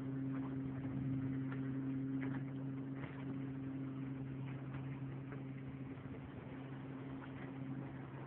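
Tohatsu outboard motor running steadily with an even hum, with a few light clicks in the first half.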